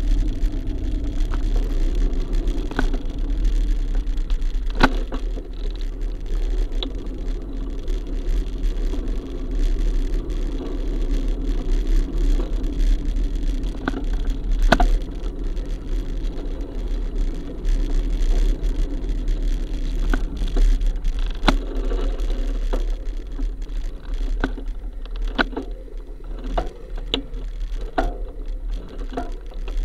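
Slow stop-and-go street traffic heard from a vehicle-mounted action camera: a steady low rumble and engine hum, with scattered short clicks and knocks throughout.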